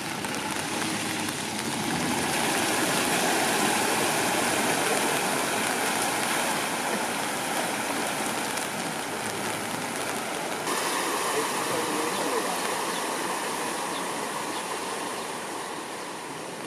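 Floodwater running along a flooded street and spilling over the kerb: a steady rush of water, loudest a few seconds in, with an abrupt change in tone about eleven seconds in.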